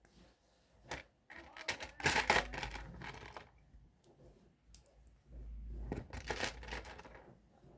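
Plastic LEGO pieces being handled: a spell of clicking and rustling about two seconds in, and another about six seconds in.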